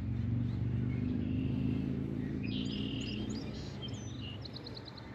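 A low, steady mechanical hum that fades toward the end, with a bird chirping a quick series of high notes in the middle.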